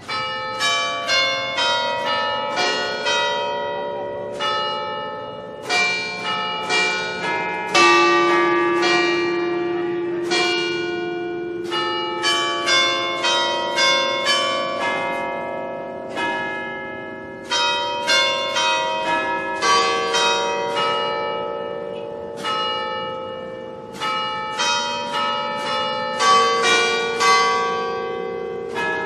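Several church bells of different pitch ringing in quick runs of strokes, each stroke ringing on and slowly dying away. The runs come in bursts with short pauses between them, and one single heavy stroke about eight seconds in is the loudest.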